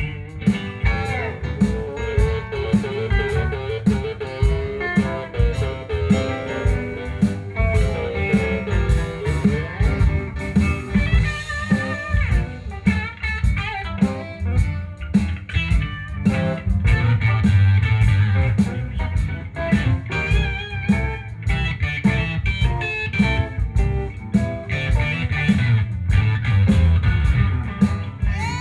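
Live band playing a blues jam, with electric guitar to the fore over drums, upright bass and keyboards.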